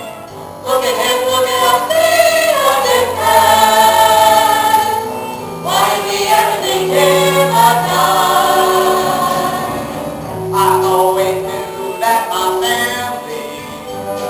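A musical-theatre cast singing together in chorus over instrumental accompaniment, in sung phrases that start about half a second in, again near six seconds and near ten and a half seconds.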